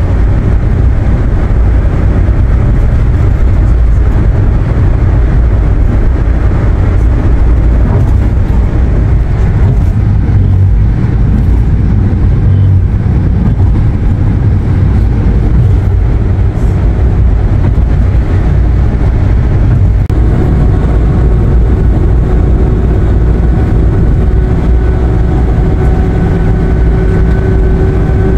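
Steady road and engine rumble inside a moving passenger van's cabin at highway speed. A faint steady whine joins in about two-thirds of the way through.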